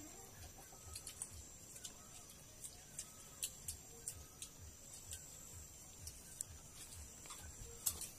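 Quiet sounds of a meal eaten by hand from steel bowls: scattered light clicks and clinks of fingers and bowls, over a steady high hiss.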